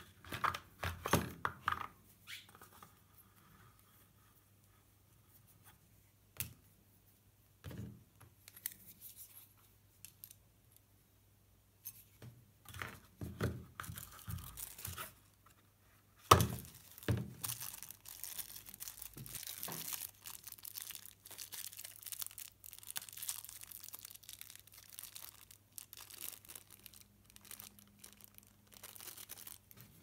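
Hands handling a cardboard box, packaging and flashlight accessories: scattered rustling, crinkling and light knocks with quiet gaps, and one sharper knock about halfway through.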